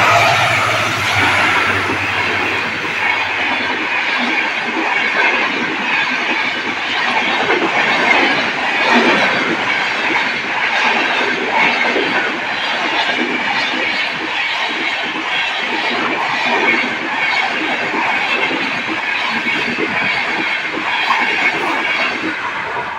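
An express passenger train passes close at full speed. The locomotive's low hum is heard in the first few seconds, then the coaches rush by with a rapid wheel clatter over the rail joints. The noise drops away near the end as the last coach goes by.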